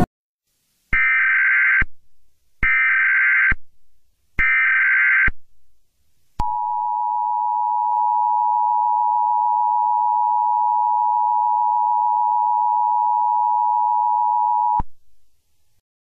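Emergency Alert System alert opening: three rasping SAME header data bursts, each about a second long, then the steady two-tone EAS attention signal held for about eight seconds before it cuts off suddenly. Together they mark the start of an Emergency Action Notification.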